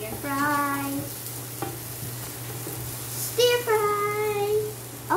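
Wooden spatula stirring diced onion, carrot and potato frying in oil in a nonstick pan, with a light sizzle and a few small clicks. Over it a child's voice sings two long held notes, one near the start and a louder one past the middle.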